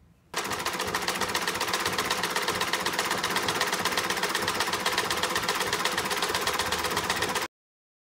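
Sewing machine stitching steadily at speed, a fast, even clatter that starts suddenly and cuts off abruptly about a second before the end.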